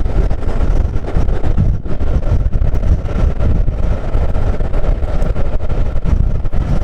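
Steady heavy rumble of a running railway train, with wind buffeting the microphone and a faint steady tone above the rumble.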